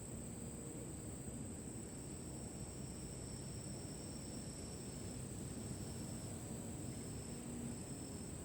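Insects trilling: a steady, thin, high-pitched drone throughout, with shorter trills a little lower that break in and out, over a low, steady rumble.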